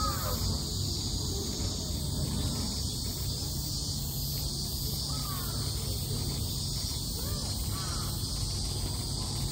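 Outdoor summer ambience: a steady high insect drone over a low rumble, with a few faint short calls about five to seven seconds in.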